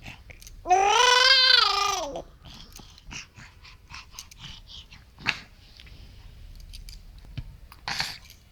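A six-month-old baby's loud, drawn-out fussing cry lasting about a second and a half, rising and then falling in pitch. After it come faint small sounds and a short breathy noise near the end.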